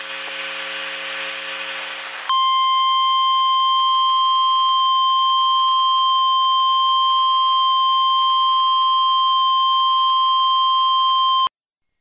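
A harsh buzz ends about two seconds in. An Emergency Alert System attention tone follows: one steady pitch held for about nine seconds, then cut off suddenly. It marks the start of a new warning.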